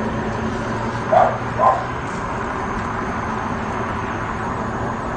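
A dog barking twice, about a second in, over a steady background hum of city traffic.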